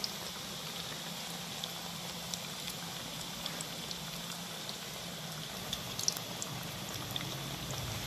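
Onion pakoras deep-frying in hot ghee in a thick iron karahi: a steady sizzle with scattered small pops.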